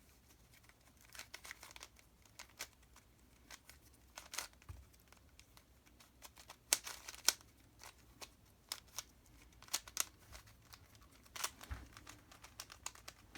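Plastic twisty puzzle being turned by hand: irregular clicks and clacks as its layers are twisted, with a few louder snaps.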